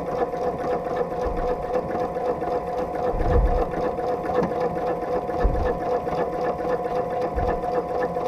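Domestic sewing machine running steadily while free-motion quilting a straight line along a ruler with a ruler foot: an even motor hum with the needle stitching through the quilt. Three dull low thumps, about two seconds apart, sound under it.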